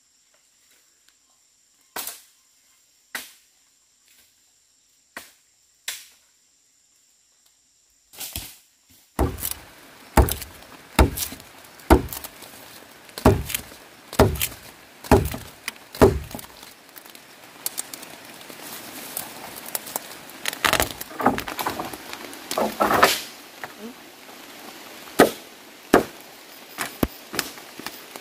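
Firewood being chopped: sharp chopping strokes, a few spaced out at first, then a steady run of about one stroke a second for several seconds, then more scattered strokes.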